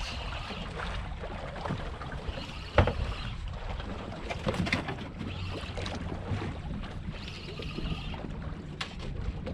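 Wind and water noise aboard a small boat at sea, with a fishing reel being wound in short spells of about a second each as a heavy fish is brought up on a bent rod. A single knock about three seconds in.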